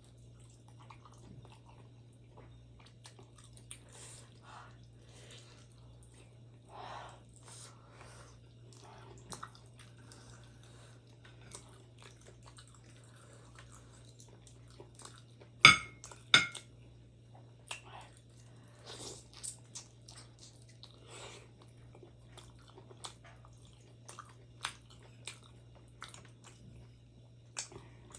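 Close-miked chewing and mouth sounds of someone eating steamed momo dumplings, with many small wet smacks and clicks, and two sharp knocks about halfway through. A steady low hum runs underneath.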